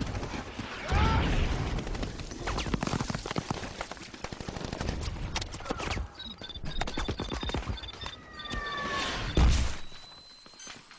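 Film battle sound effects: rapid gunfire and explosions, with a high broken beeping in the middle and a falling whistle just before a loud blast. After the blast the noise drops away, leaving a steady high ringing tone.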